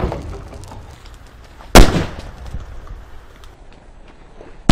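One loud blast from a calcium carbide can bomb (acetylene gas ignited in a can), a sharp bang about two seconds in with a rumbling decay. The tail of a previous blast is fading at the start.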